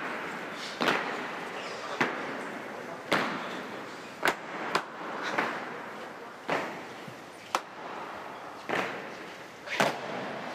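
Legionnaires' boots striking a tiled church floor in a slow, measured march step, about one heavy step a second, each echoing through the church.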